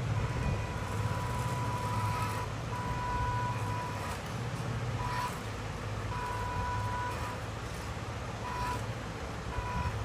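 Remote-control model truck running with a steady low drone. A high electronic beeping tone sounds on and off in uneven stretches, one lasting over two seconds and others only a fraction of a second.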